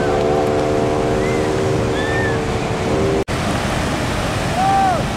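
Sea surf washing steadily on a sandy beach, with a steady droning hum over it until about three seconds in. The sound then breaks off for an instant at a cut, and a few short rising-and-falling chirps come near the end.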